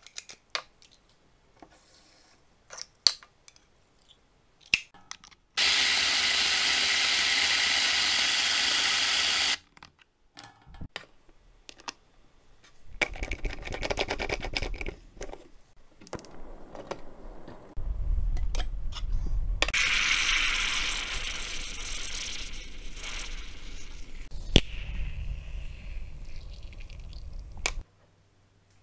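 Aluminium stovetop moka pot being readied for coffee: clicks and clinks as it is handled and unscrewed, then a kitchen tap running for about four seconds. More clattering follows, then a long steady hiss over a low rumble with one sharp click, which stops abruptly.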